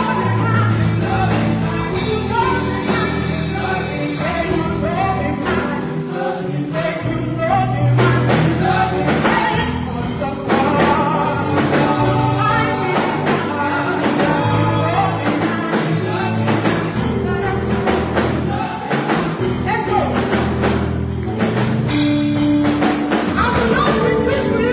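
Gospel singing by a group of voices over instrumental backing with bass and a steady beat.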